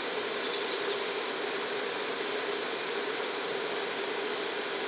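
Jetboil camp stove burner hissing steadily while it heats water for coffee. A few short, high bird chirps come in the first second.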